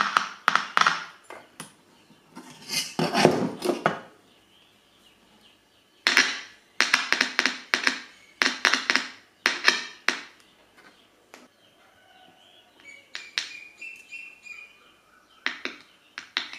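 Bursts of clicking and crackling, each a second or so long, as crocodile-clip leads and a probe are connected to a small hand-wired transistor circuit with an electret microphone and a loudspeaker. Faint high tones come in about two thirds of the way through.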